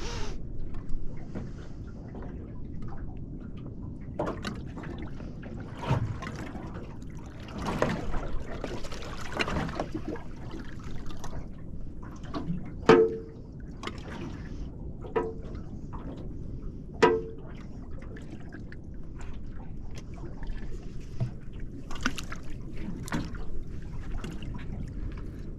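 Water lapping and sloshing against a small fishing boat's hull, with three sharp knocks that ring briefly around the middle.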